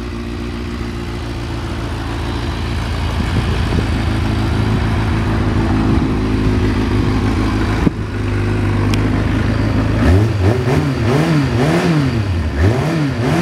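Kawasaki ZRX400 inline-four idling steadily through a carbon aftermarket muffler, with a single sharp click about eight seconds in. From about ten seconds in the throttle is blipped repeatedly, the revs rising and falling about five times in quick succession.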